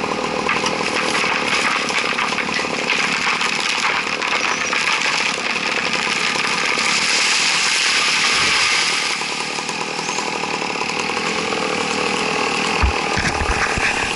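Chainsaw engine running steadily at high revs, with a single dull thump near the end.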